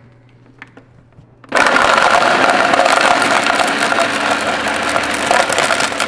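Ninja countertop blender switched on about a second and a half in, running loud and steady as its blades chop up a plastic water bottle. A few small clicks come just before it starts.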